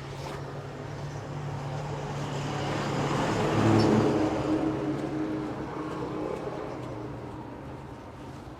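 A motor vehicle passing by on the road, its engine and tyre noise growing louder to a peak about four seconds in and then fading away, over a steady low hum of traffic.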